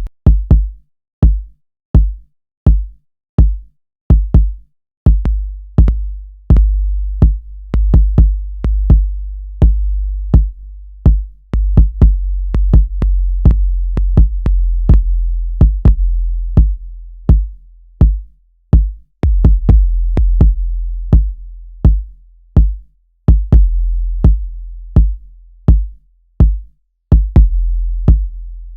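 Synthesized electronic kick drum from Maschine's drum synth, struck over and over about twice a second. Each hit is a sharp click over a deep boom, and the boom's tail changes from short to long and back between hits.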